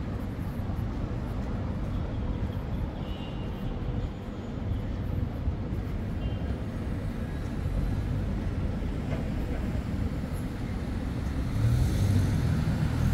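Steady road traffic noise, getting louder near the end as a vehicle comes close.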